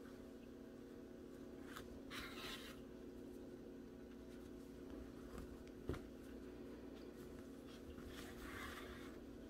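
Faint rustling and scraping of acrylic yarn and crocheted fabric as a yarn needle is worked through the stitches to sew on a piece: two short scratchy rustles, about two seconds in and again near the end, with a single small click midway, over a steady low hum.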